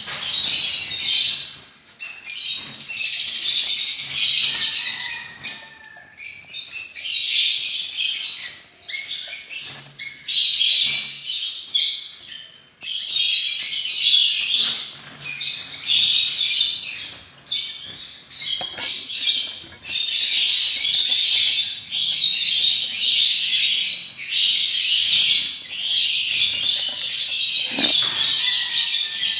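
Gouldian finches chirping and calling together in a cage, a busy high-pitched chorus that comes in bouts of a second or two with short breaks between.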